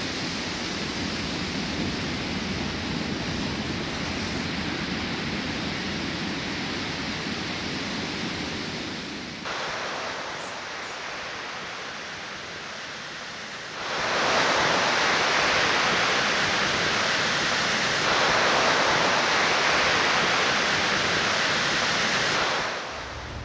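Ocean surf, a steady rushing with no distinct waves, heard across a few shots. It dips and thins at about nine and a half seconds in, then comes back louder and brighter from about fourteen seconds in.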